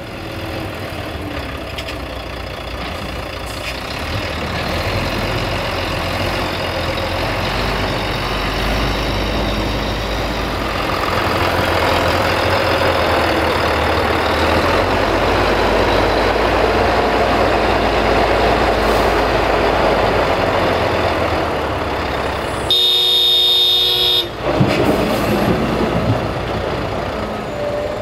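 Diesel engines of a Liebherr 944 crawler excavator and a Volvo 380 tipper truck running under work as the excavator loads soil into the truck. About 23 s in, a vehicle horn sounds once for about a second and a half, followed right after by a single sharp bang.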